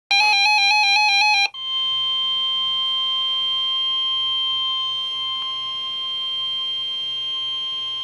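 NOAA Weather Radio alert: a fast two-pitch electronic warble for about a second and a half, then the steady 1050 Hz warning alarm tone that precedes a severe weather warning broadcast.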